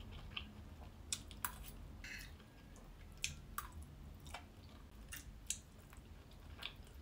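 A person quietly chewing a mouthful of egg fried rice, with soft wet mouth sounds and scattered sharp clicks.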